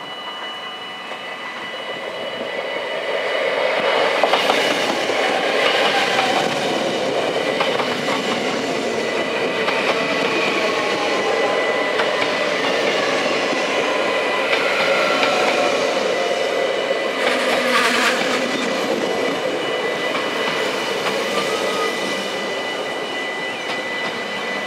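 NS VIRM double-deck electric train approaching and passing close by over a level crossing, its wheels clattering on the rails; it gets louder over the first few seconds and stays loud as the carriages go by. Under it the crossing's warning bells ring steadily.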